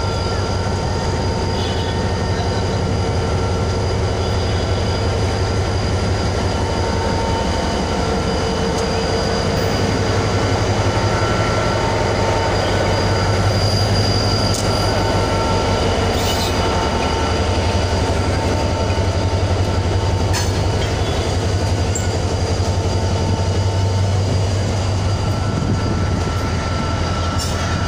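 Diesel locomotive pulling a passenger train out of a station at low speed, its engine throbbing as it passes close by about halfway through. The coaches then roll past with a thin steady wheel squeal and a few clacks over the rail joints.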